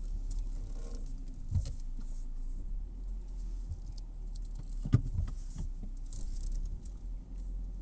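Steady low rumble inside a stationary car's cabin, with two soft knocks, one about a second and a half in and a sharper one about five seconds in.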